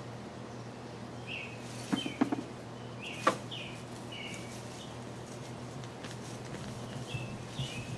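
A small bird chirping repeatedly, with a few short crackles about two seconds in and a sharp snap about three seconds in as a potato plant is pulled up from the soil.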